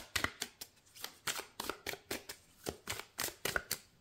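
A deck of Gilded Tarot cards being shuffled by hand: a quick run of short card slaps and flicks, about four or five a second, that stops just before the end.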